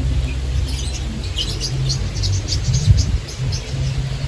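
Small birds chirping, a quick run of short high chirps through the middle, over a steady low rumble.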